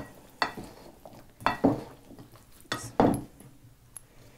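A spoon clinking and scraping in a bowl of chopped vegetables and cheese while a hand pepper mill is turned over it: about five short, sharp clinks and crunches, irregularly spaced.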